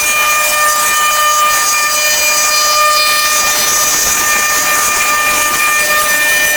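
A machine running steadily: a constant high-pitched whine over a loud hiss.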